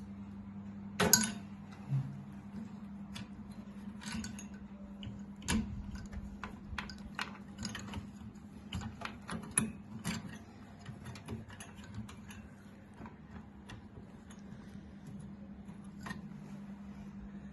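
Scattered small clicks and metallic taps from PC components and screws being handled and fitted, with a sharper knock about a second in, over a steady low hum.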